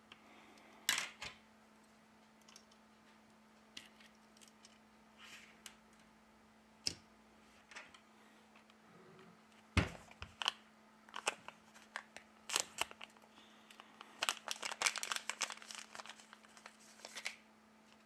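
Small clicks, taps and scrapes of a repair tool and fingers handling the parts of an opened Sony Xperia XZ1 phone as its charging port is lifted out. A quick run of clicks comes near the end, over a faint steady hum.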